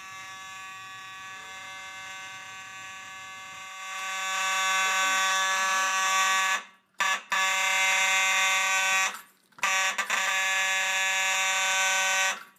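Fire alarm sounding a continuous buzzing tone. About four seconds in it becomes much louder, cuts out briefly twice, and stops near the end.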